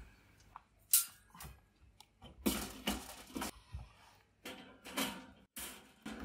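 Handling noises at a charcoal kettle grill: a single sharp knock about a second in, then stretches of scraping and rustling, with short knocks near the end.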